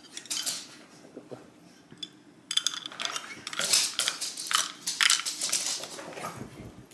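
Cutlery and dishes clinking and clattering: a few faint clicks at first, then a quick, dense run of light clinks from about two and a half seconds in until near the end.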